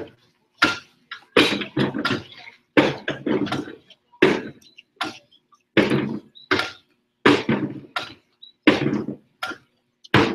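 Wheelbarrows struck as percussion instruments in a children's ensemble piece: a run of sharp strikes, roughly two a second and unevenly spaced, each with a short ring.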